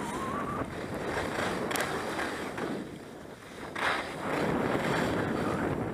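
Skis hissing and scraping over groomed snow on a downhill run, with wind rushing over the microphone. A short, harder scrape comes near four seconds in, and the rushing is louder after it.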